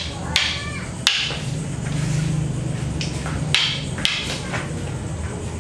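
Rattan arnis sticks clacking, about half a dozen sharp, irregular strikes as strikes are met by counters.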